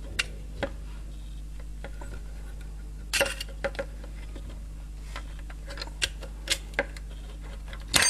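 Tin snips cutting thin aluminium sheet: a series of sharp snips and clicks at uneven intervals, with a louder clatter near the end.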